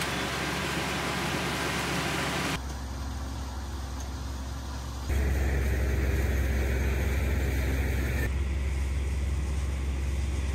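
A small riding rice combine harvester running as it cuts standing rice, for about the first two and a half seconds. The sound then cuts abruptly to a steady low rumble of wind on the microphone, with further sudden changes about five and eight seconds in.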